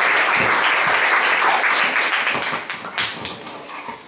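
Audience applause in a room, a dense patter of many hands clapping that thins out and dies away to a few scattered claps over the last second or so.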